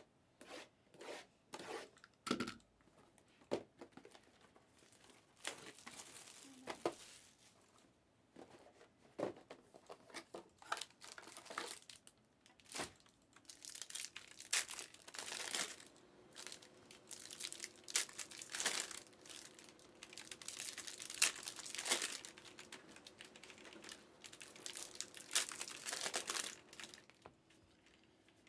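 Plastic shrink wrap being cut and torn off sealed trading-card hobby boxes, crinkling and crackling in irregular bursts that come thicker in the second half.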